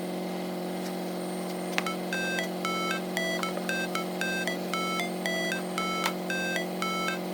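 Background music: a steady held chord, joined about two seconds in by a repeating melody of short, high notes.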